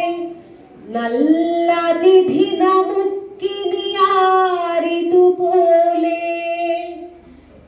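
A woman singing solo and unaccompanied into a microphone through a PA, in long held, gliding notes. There is a short breath break about a second in, and the phrase fades near the end.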